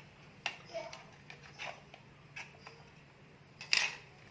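Scattered light plastic clicks and taps from a LAN tester and RJ45-plugged network cable being handled, with one louder, sharper click near the end.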